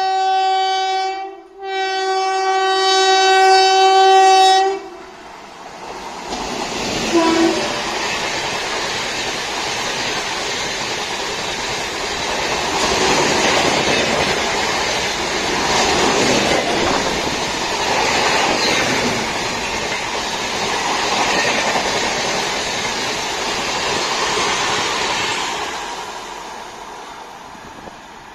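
Express train running through at speed: the locomotive's multi-note air horn blows, breaks briefly about a second and a half in, then sounds again until about five seconds in. Then come the steady rush and rattle of the coaches passing over the rails for some twenty seconds, fading near the end.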